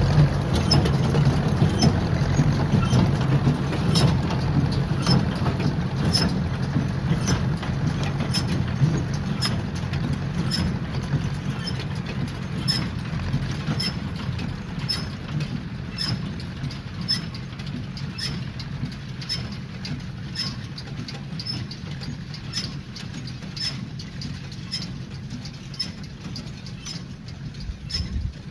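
Ford 860 tractor running under load while powering a Massey 10 square baler, with a sharp click from the baler about once a second. The sound slowly gets quieter.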